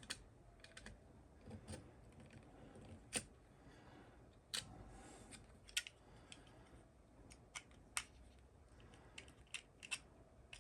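Small fuse packet being picked at and worked open by hand: faint, scattered clicks and crinkles, about a dozen over the stretch.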